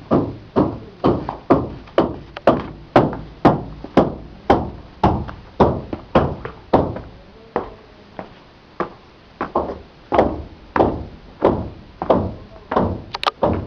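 Footsteps on concrete steps, each a sharp knock, about two a second, with a brief pause about eight seconds in.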